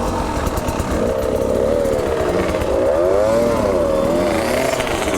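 Two-stroke dirt bike engines running on a trail ride, with the engine note rising and falling over and over as the throttle is worked, starting about a second in.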